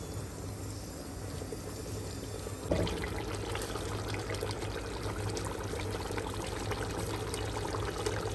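Chicken kofta curry masala sizzling and bubbling in a steel pot over the heat, starting up suddenly about three seconds in and crackling steadily after that, over a low steady hum.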